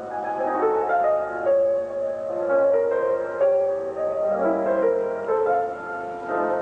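Piano music, a melody of separate notes over chords.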